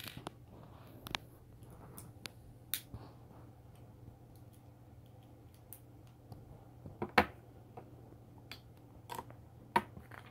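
Plastic LEGO pieces being handled, pressed together and set down on a wooden table: scattered sharp clicks and taps, a few louder ones about seven seconds in and near the end.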